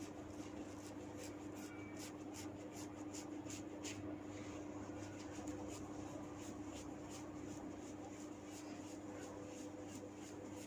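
Hair cracking during a head massage: an irregular run of small, sharp crackling snaps as tufts of hair are tugged at the scalp, over a steady low hum.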